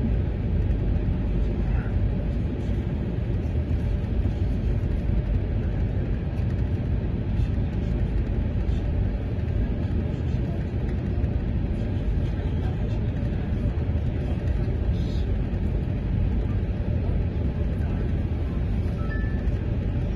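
Steady low rumble of a moving vehicle, heard from inside its cabin while it travels at speed.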